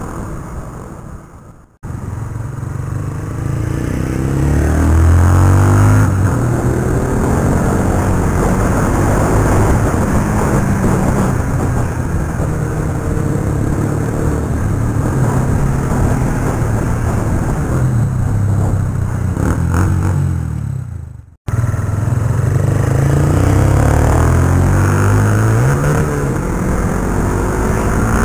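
Suzuki Gixxer's single-cylinder engine running through a replica Akrapovic aftermarket exhaust while riding, its exhaust note climbing in pitch as it accelerates several times. The sound cuts out briefly twice, about two seconds in and again about 21 seconds in.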